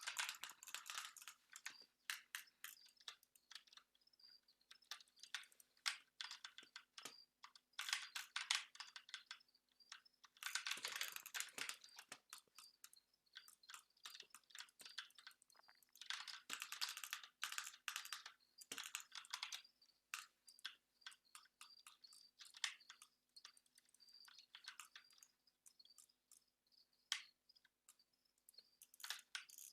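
Computer keyboard being typed on in quick bursts of clicks a second or two long, with scattered single clicks in between.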